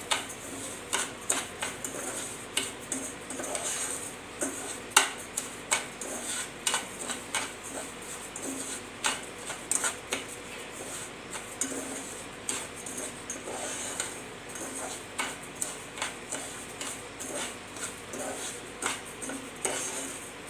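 Metal spoon stirring and scraping dry sugar with a little ghee around a saucepan, with irregular clinks and scrapes of the spoon on the pan several times a second. The sugar is still granular and only beginning to melt.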